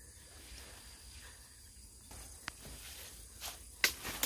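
Faint rustling of leaves and twigs in a santol tree, with a few sharp clicks and snaps in the last two seconds, the loudest about a second before the end.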